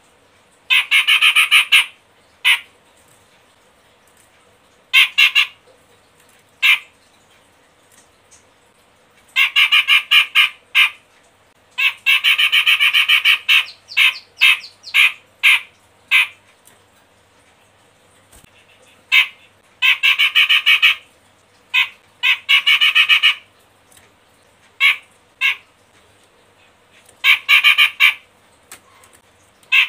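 Caged cucak jenggot Medan, a bearded Alophoixus bulbul, calling in loud harsh bursts of chattering. Each bout lasts half a second to two seconds, with short pauses between.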